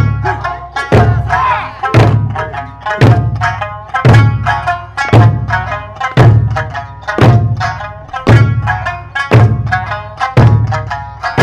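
Large Okinawan eisa barrel drums (ōdaiko) struck together by a line of dancers, one heavy booming beat about every second, over Okinawan folk music playing throughout.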